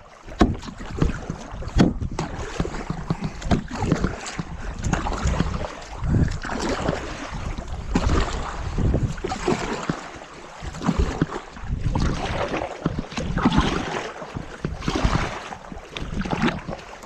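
Kayak paddles dipping and splashing through the water in repeated strokes, swelling every second or two, with wind buffeting the microphone. A few sharp knocks come in the first couple of seconds.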